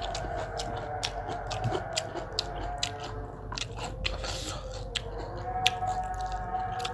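A person chewing and biting food close to the microphone, with many quick, sharp crunchy clicks.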